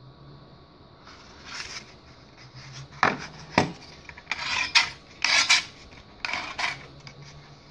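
Plastic XTAR VC4 battery charger being handled: two sharp knocks as it is put down on a hard countertop, then three short scraping rubs as fingers work over its battery slots.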